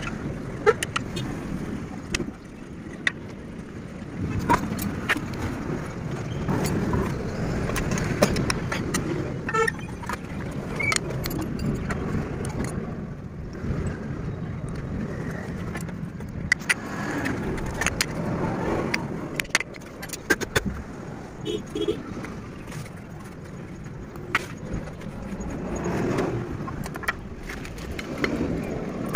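Scattered metallic clicks and clinks of hand tools and disc brake parts being handled, over a steady background of road traffic that swells and fades as vehicles pass.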